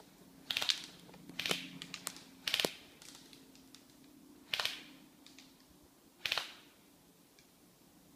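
Footsteps crunching and brushing through ferns and undergrowth on a forest floor, six uneven steps that stop a little after six seconds in. A faint steady low hum runs underneath.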